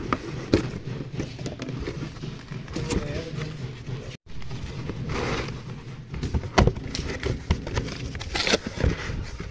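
A cardboard box being opened by hand, with its flaps rustling and scraping and scattered knocks and clicks. A low steady hum runs underneath.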